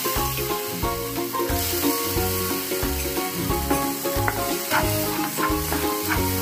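Sugar with a little water sizzling in a hot nonstick pan as a wooden spatula stirs and scrapes it; the sugar is starting to melt into syrup. Background music with a steady bass beat plays over it.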